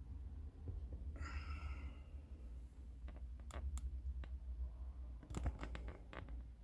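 A series of small, sharp clicks over a low handling rumble, with a brief high tone lasting under a second about a second in.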